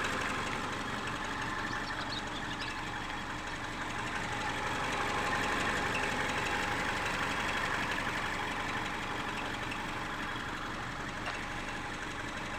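Subaru engine idling steadily, with the squeak from its belt-driven accessories that the owner puts down to worn alternator and water pump bearings.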